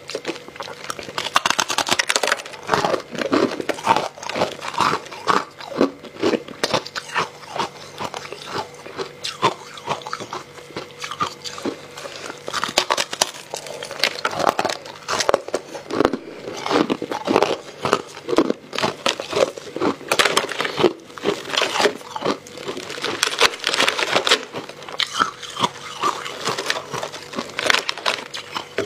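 Biting and chewing chunks of hard ice coated in matcha powder, close to the microphone: a continuous run of sharp crunches and cracks as the ice breaks between the teeth.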